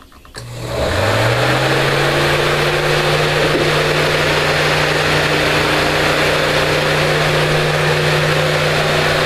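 A 12-volt DC car radiator fan working as a greenhouse exhaust fan is switched on with a click, spins up within about a second, and settles into a steady hum with a loud rush of air.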